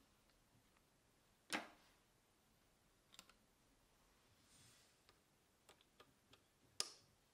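Sharp clicks and light ticks of small metal sewing-machine parts as a filled bobbin is taken off the bobbin winder and fitted into the bobbin case, over near silence. The loudest clicks come about a second and a half in and near the end.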